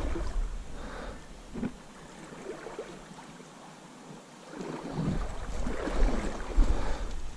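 Shallow river water rushing and lapping close by, with wind rumbling on the microphone; louder at the start and again from about five seconds in.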